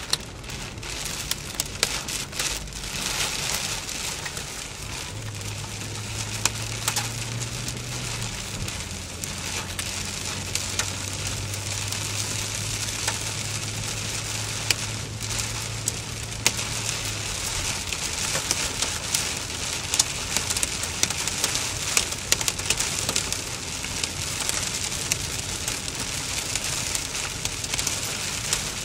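Heavy rain falling hard on a moving car's windscreen and roof, heard from inside the car as a dense hiss with many sharp pattering drop impacts. A steady low hum runs from about five to seventeen seconds in.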